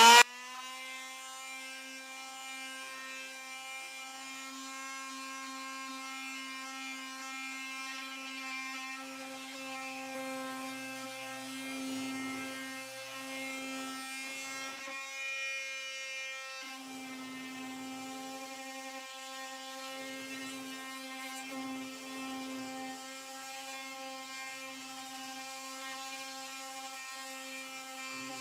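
Oscillating multitool with a detail sanding pad running at a steady high hum while sanding old paint off wood. Scratchy sanding noise comes and goes as the pad presses on the surface, most in the middle of the stretch, and the hum dips briefly about halfway through.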